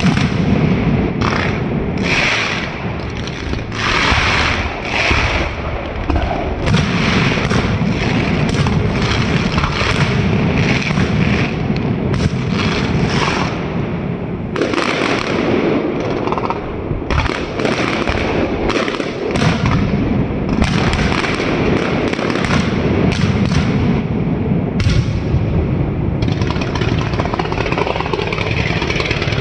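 Fireworks going off in a rapid, unbroken barrage of bangs and crackles.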